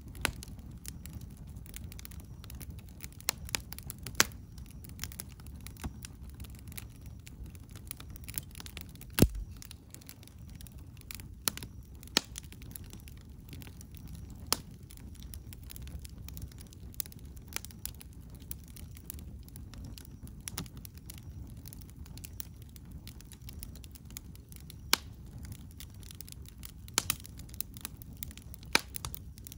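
Wood campfire crackling, with irregular sharp pops, the loudest about nine seconds in, over a low steady rumble.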